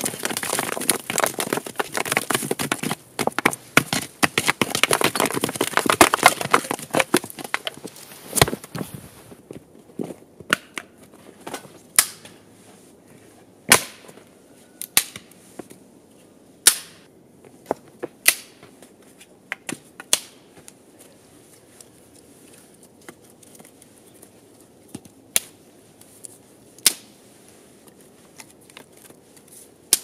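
A wooden stick scraping and sweeping snow off the ground for several seconds. Then a dozen or so sharp wooden clacks come at irregular intervals as dry sticks are knocked together and laid side by side into a platform for a fire.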